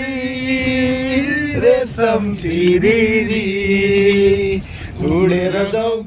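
A man's voice singing in long held notes, like a chant: one held note, then a lower one held for about two seconds, then a short sliding phrase near the end.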